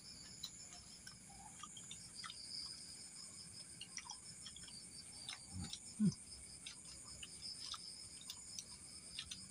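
Steady high-pitched chirping of night insects such as crickets, with scattered soft clicks and crunches of crisp fried banana-stem chips being eaten, and a brief low voice sound about six seconds in.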